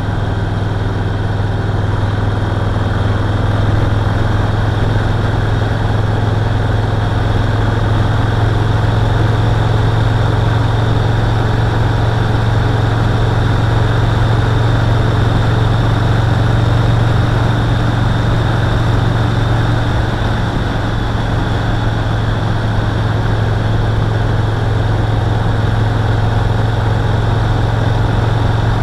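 Yamaha Roadliner's V-twin engine running steadily, a loud low hum that holds its pitch, with a slight rise in loudness over the first few seconds.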